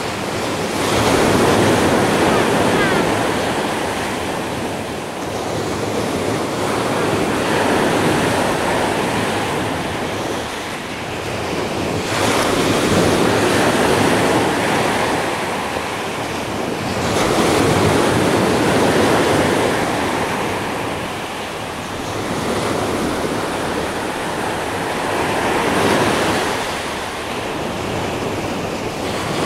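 Small sea waves breaking on a gravel-and-sand beach, the surf swelling and washing back in a slow rise and fall about every five to six seconds.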